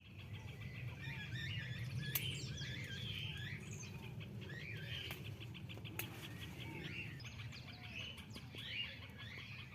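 Several birds chirping and trilling in quick, overlapping short calls, over a low steady rumble that eases after about seven seconds, with a few sharp clicks.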